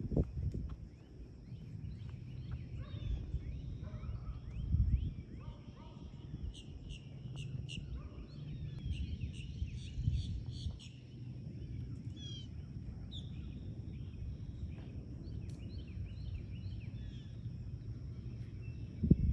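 Outdoor ambience of birds chirping and giving short falling whistles over a steady low rumble, with dull thumps about five and ten seconds in.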